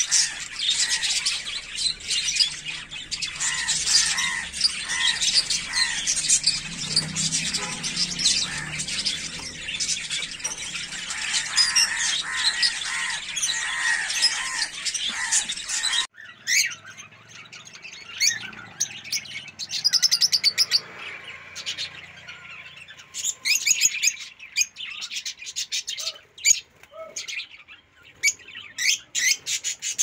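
A group of caged lovebirds chirping and squawking. For the first half it is a dense, continuous chatter with a call repeated over and over. Partway through it cuts abruptly to sparser, sharp single chirps and squawks.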